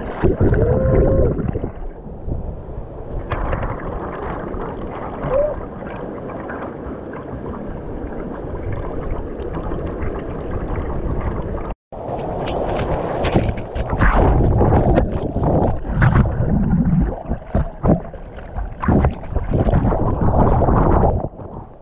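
Waterfall stream rushing over and around a camera held at water level, gurgling and splashing straight against the microphone. It cuts out for an instant about halfway through, and the splashing then comes in louder, more uneven surges.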